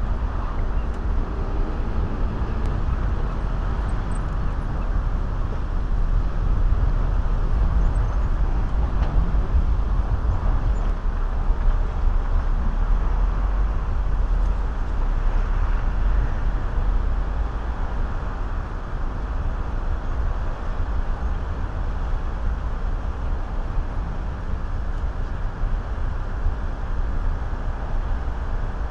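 Street traffic at a pedestrian crossing: cars passing and pulling away in a steady low rumble.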